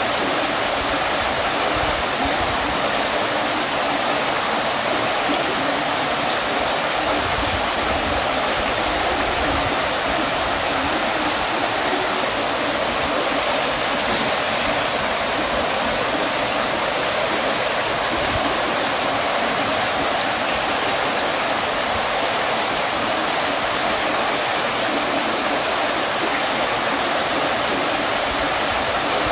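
Water falling and splashing steadily from a fountain, an even bright hiss with little low rumble. One brief high plink about halfway through.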